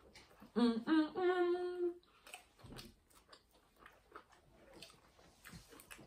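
A woman humming "mm-mm-mmm" with her mouth full of pizza: three short hummed notes about half a second in, the last held for about a second. Then soft chewing and lip-smacking clicks.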